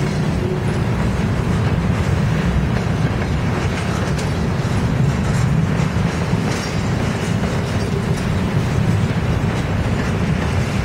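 A train rolling by on the rails: a steady, loud rumble with faint scattered clicks of wheels over the track.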